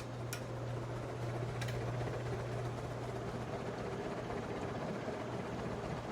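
Antique Robbins & Myers ceiling fan running at full speed: a steady electric motor hum with air noise from the blades. There are a few faint clicks in the first two seconds.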